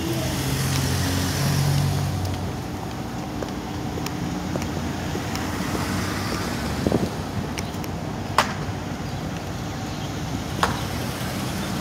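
City street traffic: car and pickup engines running as vehicles pass close by, with one nearby engine's hum strongest in the first couple of seconds before it fades into a general traffic hiss. A few short sharp clicks come in the second half.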